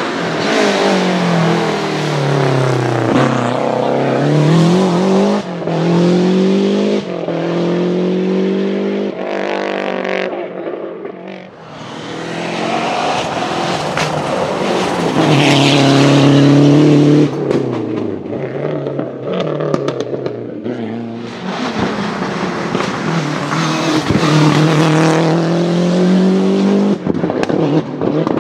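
Lancia Delta HF Integrale Group A rally cars' turbocharged four-cylinder engines driven hard through several passes, the pitch climbing under throttle and dropping at each gearshift or lift. There are a few sharp exhaust cracks about two-thirds of the way in.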